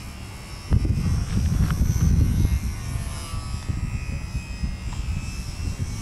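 Gusting wind buffeting the microphone, starting suddenly about a second in, over the faint, drifting whine of a HobbyZone Super Cub RC plane's electric motor and propeller flying overhead.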